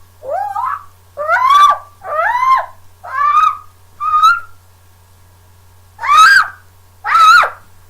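A string of short, high-pitched cries, seven in all, each sliding up in pitch and then dropping back. They come about once a second, with a pause of over a second before the last two.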